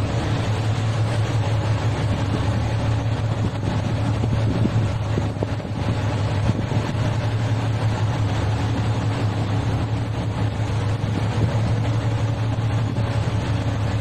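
A patrol vessel's engines drone steadily with a low hum while it tows a fishing boat, mixed with rushing wake and wind noise on the microphone.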